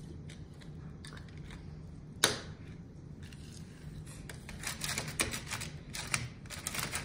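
Plastic clicking and clacking of small action figures being battled with their hand-held trigger controllers: one sharp snap about two seconds in, then rapid clattering from about halfway through.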